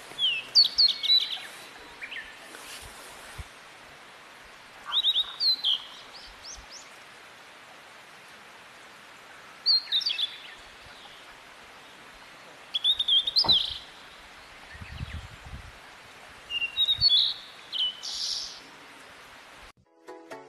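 A songbird singing short phrases of quick, high chirps, one burst every few seconds, over a steady background hiss.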